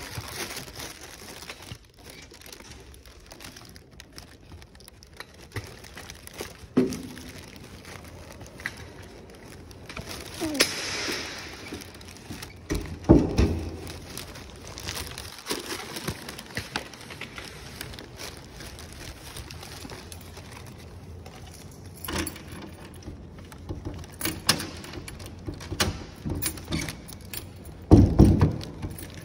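Belongings being handled and moved: irregular knocks, clicks and rustling, with a hiss about ten seconds in and heavier thumps about thirteen seconds in and near the end.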